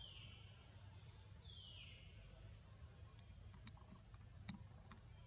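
Two thin, high calls from an infant macaque, each falling in pitch over about half a second, the second about a second and a half after the first. Then a few faint clicks and one sharper tap about four and a half seconds in, over near silence.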